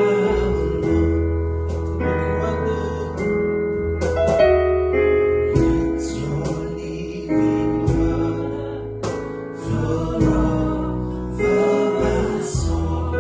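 Gospel worship song performed by a small band: singing over keyboard chords, bass guitar and regular percussion strikes, likely a cajon.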